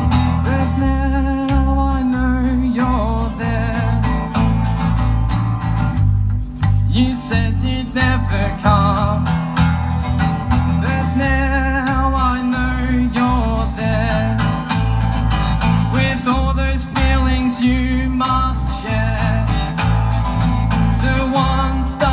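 A live band plays a song: guitars over a moving bass line and a steady beat, with a melody line that wavers in pitch.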